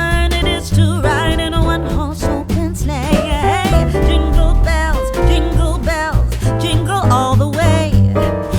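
Background song: a sung melody with instrumental backing over a steady beat.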